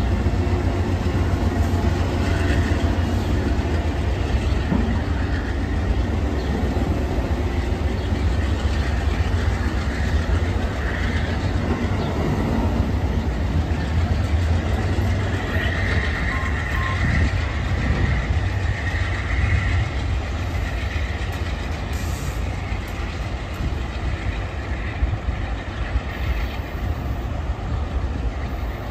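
Amtrak passenger train's stainless-steel coaches rolling past close by: a steady, continuous rumble of wheels on rail that eases slightly near the end as the last cars go by.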